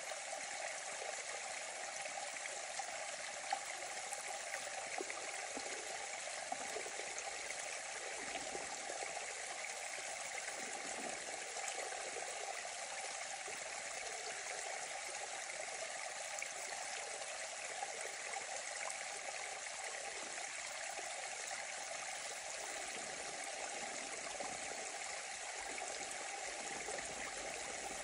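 Small muddy forest stream running over twigs and leaf litter: a steady rushing splash with little deep rumble.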